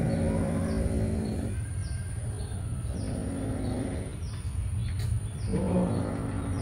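Domestic cat growling low in three long bouts while holding a caught mouse in its mouth, guarding its prey. Small birds chirp in the background.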